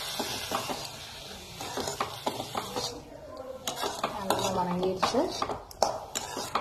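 A perforated metal spatula stirring diced banana stem in a metal kadai: repeated scraping and clinking of metal on metal. A faint sizzle fades out in the first second or so.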